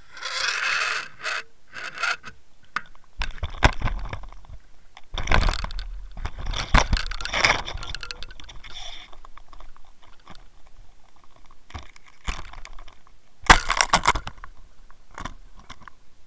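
Irregular scraping, rubbing and knocking of the camera and gear against a boat's side, with several louder noisy bursts and sharp clicks.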